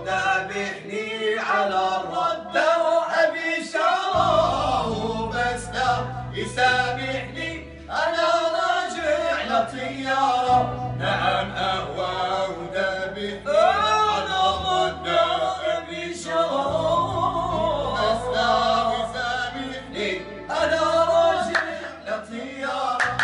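Men singing an Arabic song together to a Korg electronic keyboard, with low sustained keyboard notes that change every few seconds under the voices.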